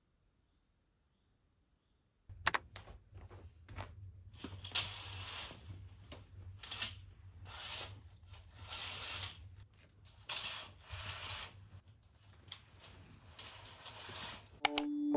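Curtains being drawn open: a run of fabric swishes and curtain runners sliding along the rail, with a few clicks, over a steady low hum.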